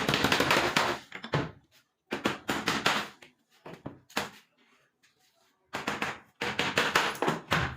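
Bursts of rapid knocking and chopping on wood with a hand tool: three longer runs of quick blows and one short one, with pauses between.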